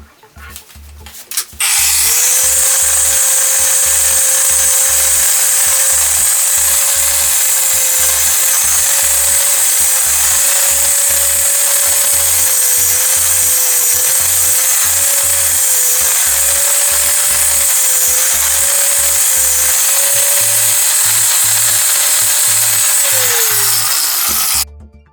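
Handheld power tool running at full speed for about twenty seconds, its motor whine dipping slightly now and then as it is pressed into the work, then winding down and stopping near the end. Background music with a steady beat plays underneath.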